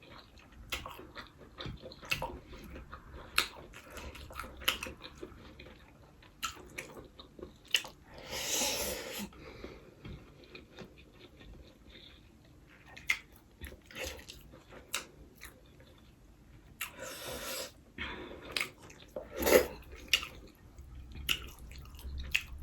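Close-up chewing of a mouthful of fried rice: wet mouth clicks and smacks scattered throughout, with a few longer breathy bursts about a third of the way in and again near the end.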